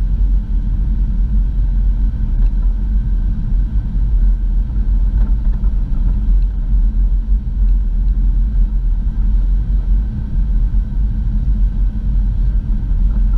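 Steady low rumble of a vehicle heard from inside its cabin as it drives along a snow-packed road: engine and tyre noise, even throughout.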